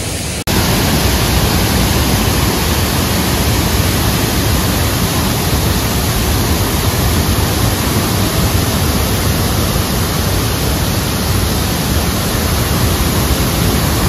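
Waterfall spilling over a dam wall: a loud, steady rush of falling water that starts suddenly about half a second in.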